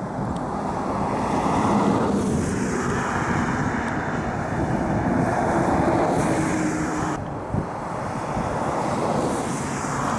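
Wind buffeting the microphone outdoors: an uneven, fairly loud rushing noise that rises and falls.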